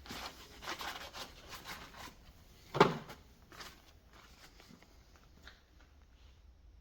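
Chainsaw being handled while its old chain is taken off: a run of light clinks and rustles, one sharp knock a little under three seconds in, then a few faint clicks.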